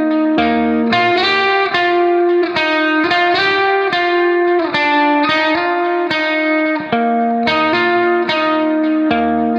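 Instrumental background music: a guitar playing a steady, unbroken run of plucked notes over sustained lower tones.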